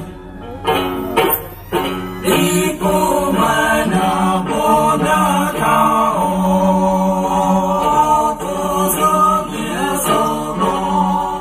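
A woman singing into a microphone through the stage sound system, holding long notes, with instrumental backing.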